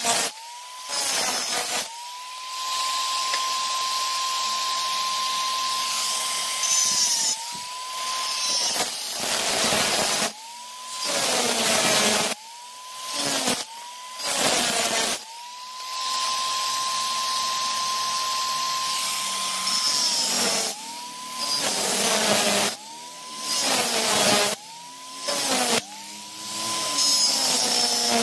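Angle grinder with a cutoff disc cutting steel square tubing. It runs in about ten separate bursts: each time the motor spins up to a steady high whine with a harsh hiss as the disc cuts the metal, then winds down when released.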